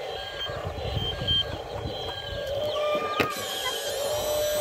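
Small electric motors of a remote-control toy excavator whining in short stop-start runs as it swings its cab and moves its boom, with one sharp click about three seconds in.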